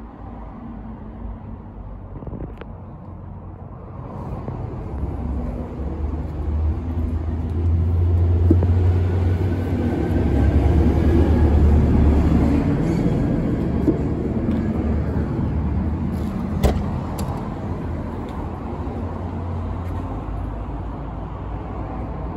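Low engine rumble of a motor vehicle that swells over several seconds and then slowly fades, with a couple of light clicks.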